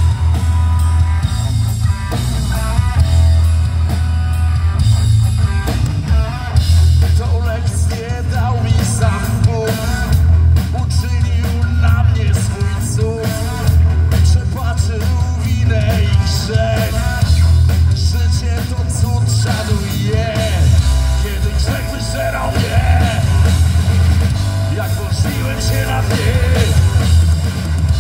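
A rock trio playing live: guitar, bass guitar and drum kit, loud and without a break, with a lead vocal singing over them.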